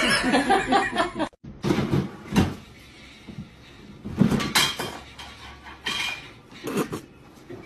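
A cat yowls for about the first second, then cuts off. After that a plastic swing-lid trash bin knocks and clatters several times as a cat climbs on it and pushes through its lid.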